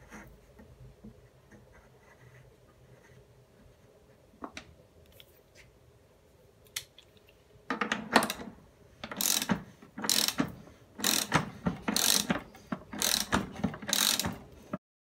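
Ratchet wrench clicking in repeated strokes, about one a second from about eight seconds in, as a threaded fitting is tightened onto a brass pipe tee. Faint handling noise comes before it.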